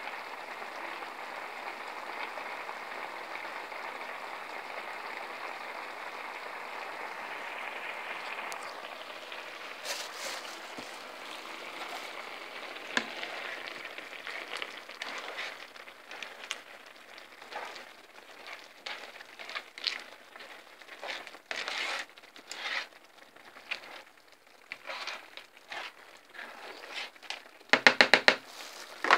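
Seafood paella broth boiling in a wide paella pan: a steady bubbling hiss, breaking after about nine seconds into irregular pops and spatters. Near the end there is a brief, loud, rapidly pulsing buzz.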